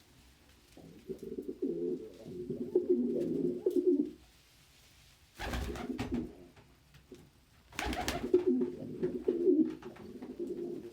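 Domestic pigeons cooing in two long, low, warbling bouts, one about a second in and one near the end. A brief noisy burst comes between them.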